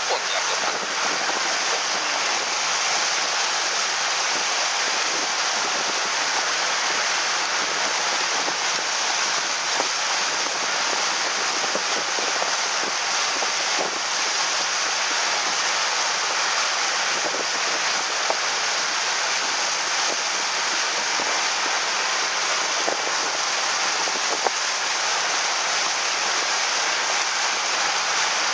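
Steady, even rushing of water past a moving motorboat's hull, with a few faint knocks.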